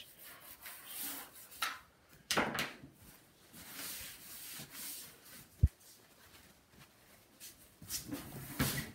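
Brisk rubbing and scrubbing on the plastic case of a CRT monitor, first with a toothbrush and then with a paper towel. There is one sharp knock a little past halfway.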